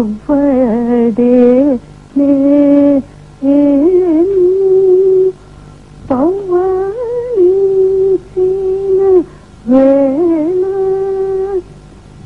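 A singer's voice holding long classical notes for a dance item, in phrases of one to two seconds that slide into each note, with short pauses between them, over a faint steady drone.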